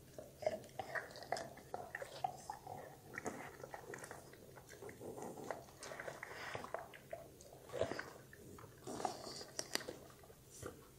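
A dog chewing and crunching a piece of vegetable, with many short, irregular clicks of its jaws.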